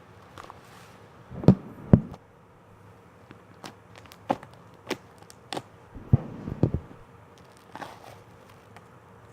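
Slime being squeezed and played with by hand, giving scattered sharp pops and clicks, the loudest two about one and a half and two seconds in and another cluster around six to seven seconds in.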